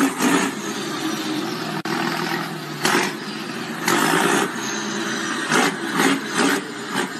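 Steady engine and road noise from a car, broken by a series of sudden loud crashing bursts as a dump truck ahead overturns and slides off the road: one at the start, one about three seconds in, a longer one around four seconds, and three more close together near the end.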